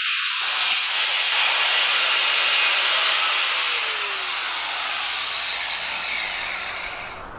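Angle grinder grinding a chamfer into the edge of a steel crane-rail section, a loud steady hiss of abrasive on steel. From about three and a half seconds in it is lifted off and winds down with a falling whine that fades toward the end.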